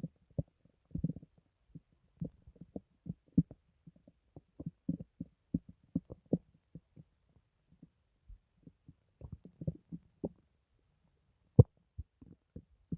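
Human stomach gurgling: a scatter of short, irregular bubbling pops, with a sharper, louder pop shortly before the end.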